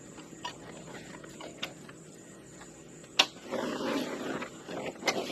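A steady high insect drone, with a few light knocks, then a sharp click about three seconds in followed by rustling and scraping handling noise and another click near the end.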